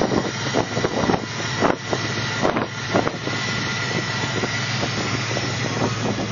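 Ford 5.0-litre Windsor V8, transplanted from an NC Fairlane, idling steadily, heard over the open engine bay. The exhaust ends at the Y-pipe behind the catalytic converters, yet the engine runs surprisingly quietly.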